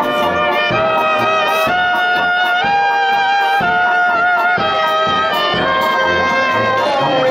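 Brass band playing a folk dance tune: trumpet-led melody in held and stepping notes over a steady beat of about two pulses a second.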